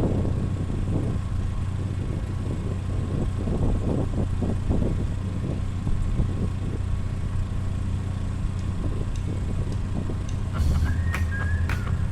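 An engine running steadily with a low hum, under light irregular crackling. Near the end it gets louder, with a run of sharp metallic knocks and short high squeals.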